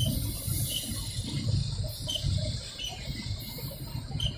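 Freight train of covered hopper cars rolling past, wheels rumbling on the rails in a rough rhythm, with short high squeaks recurring about every half second to a second.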